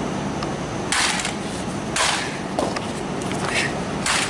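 Sledgehammer blows smashing a wooden box: three heavy, sharp impacts with splintering about a second or two apart, and lighter knocks between.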